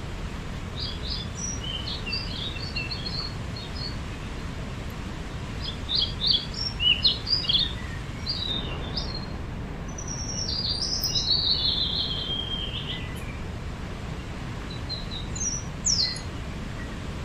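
A songbird singing in several phrases of quick, high chirping notes, including one longer phrase that falls in pitch midway, over a steady low background rumble.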